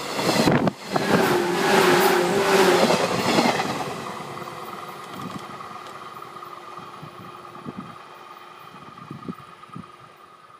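JR West 115 series electric train passing close by: loud rumble and rail noise with a steady motor hum for the first four seconds, then fading as it runs away. A few faint wheel knocks over rail joints are heard near the end.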